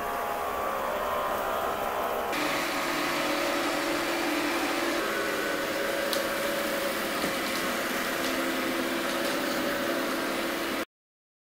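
Ecovacs Deebot X1 Omni robot vacuum running with a steady whir and a few faint clicks. The whir changes tone about two seconds in and cuts off suddenly near the end.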